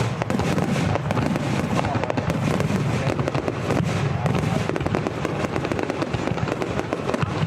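Fireworks display: a dense, unbroken run of bangs and crackling over a continuous low rumble.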